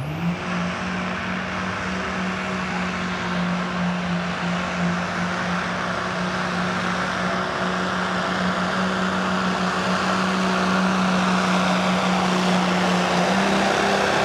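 Second-generation Dodge Ram 2500's Cummins turbo-diesel engine at full throttle pulling a truck-pull sled. Its pitch climbs sharply in the first half-second, then holds high and steady, growing slowly louder, with a slight rise near the end.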